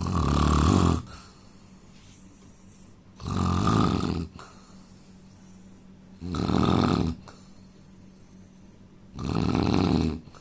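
A man snoring in his sleep: four loud snores about three seconds apart, each lasting about a second.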